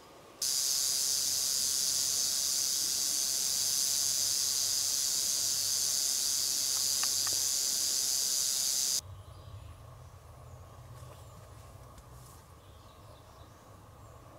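Timber rattlesnake rattling its tail, a loud, steady high buzz that is its defensive warning. It starts abruptly and cuts off sharply about nine seconds in, leaving faint forest background.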